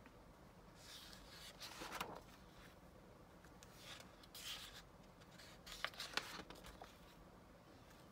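Faint rustling of printed paper sheets being turned over and smoothed flat by hand, in a few soft swishes, with two light ticks about six seconds in.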